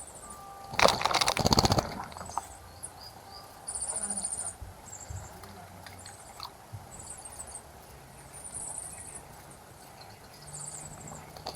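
A bird bathing, its wings fluttering and splashing water in a bird bath in a loud burst for about a second. Several short, high-pitched chirps and trills from small birds follow.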